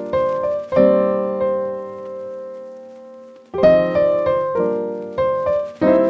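Background piano music: chords struck and left to ring out, one held for nearly three seconds, then several quicker ones near the end.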